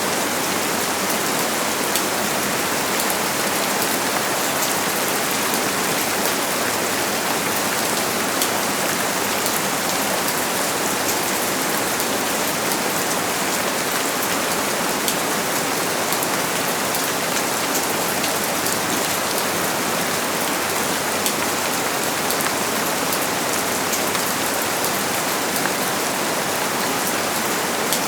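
Steady rain falling, a constant even hiss with many fine drop ticks.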